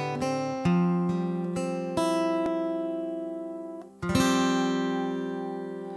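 Background music: the slow acoustic guitar intro of a love song, with chords struck about every second or two and left to ring out and fade.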